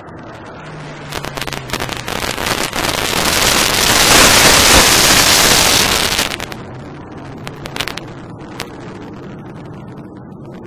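Aircraft noise from a low formation flypast of a C-27J Spartan twin-turboprop transport with two jet fighters. An engine tone drops in pitch as it passes, then a loud roar builds over a few seconds, is loudest about four to six seconds in, and falls away suddenly, broken by sharp crackles.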